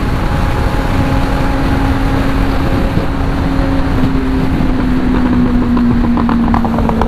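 Superbike engine and exhaust running at a steady highway cruise, with a strong low rush of wind and road noise; the engine note sinks slowly. A few short crackles come through about two-thirds of the way in.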